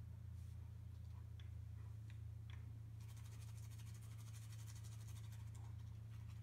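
A toothbrush scrubbing a Beauceron's teeth: a faint, fast, scratchy scrubbing that starts about three seconds in, after a few soft ticks, over a steady low hum.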